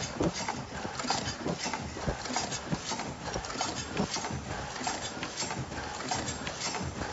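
Automatic face-mask production machine clattering as it runs, a rapid, uneven stream of mechanical clicks and knocks.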